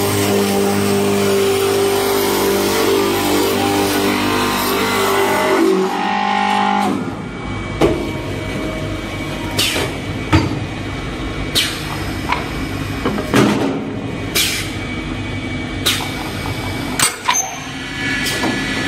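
Automatic wood copy lathe running as it turns square wooden blanks into round sticks: a steady machine hum for the first several seconds, then cutting noise broken by irregular sharp knocks and clacks.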